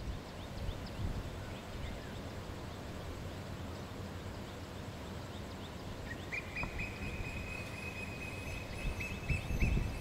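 Early-morning outdoor ambience: a steady low rumble with many faint, short high chirps of distant birds. From about six seconds in, a steady high whistling tone holds to the end.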